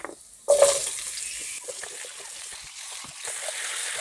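Cut vegetables tipped into hot mustard oil in a kadai: a sudden loud sizzle about half a second in, then a steady sizzling hiss as they fry.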